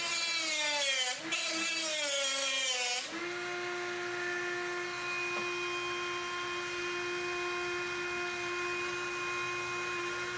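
Dremel rotary tool with a cutting wheel, cutting through a computer case panel. For about the first three seconds the whine is louder and its pitch sags as the wheel bites in, with a brief break around a second in. The tool then runs on free with a steady high whine.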